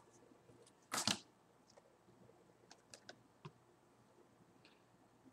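Stack of basketball trading cards being flipped through by hand: a brief, louder shuffle of cards about a second in, then faint scattered clicks as card edges snap past one another.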